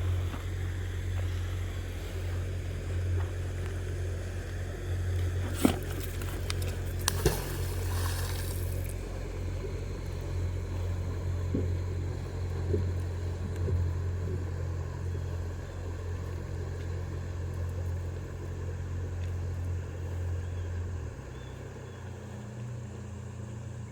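Steady low engine drone that drops and changes pitch about three seconds before the end, with two sharp knocks and a short hiss about six to eight seconds in.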